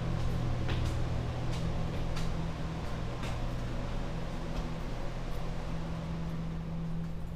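Steady low machine hum, with the light clicks of footsteps on hard stairs and floor during the first few seconds.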